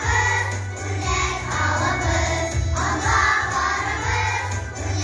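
A choir of young children singing in unison in Tatar over a backing track with a steady bass line.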